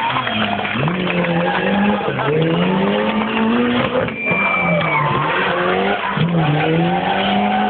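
Car doing donuts and drifts: its engine revs up and falls back again and again as the tyres squeal and skid on the tarmac.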